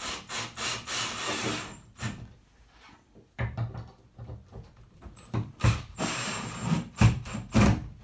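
Metal hardware scraping, rubbing and knocking against a ceiling electrical box as a fan adapter plate is fitted, in several spurts, with a few sharp knocks near the end.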